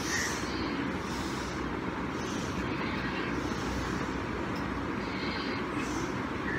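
Steady background noise: a continuous low rumble and hiss with no distinct events, with faint brief hissy swells every second or so.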